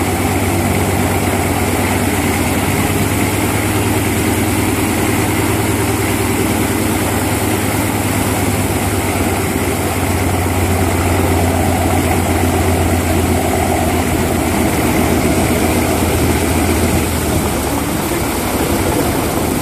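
Antonov An-2's nine-cylinder Shvetsov ASh-62 radial engine idling steadily with its four-blade propeller turning, a deep even throb; the deep part of the note weakens slightly near the end.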